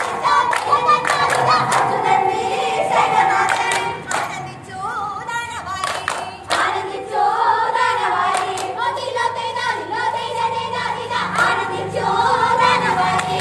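A group singing a song in chorus, with hand claps.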